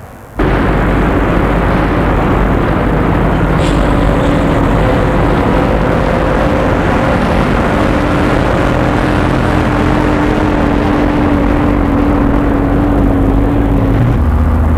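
Heavy lorry on the move: a DAF 3300 tractor unit's diesel engine running steadily under load, with road and tyre noise from the multi-axle low-loader carrying a steam locomotive. The sound cuts in abruptly about half a second in, and the low rumble grows louder near the end.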